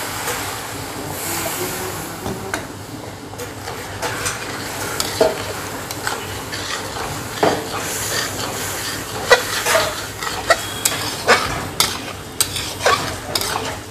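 Masala and boiled taro root sizzling in a hot kadhai as water is added, while a slotted metal spatula stirs and scrapes the pan. Sharp clinks of the spatula against the pan come more often in the last few seconds.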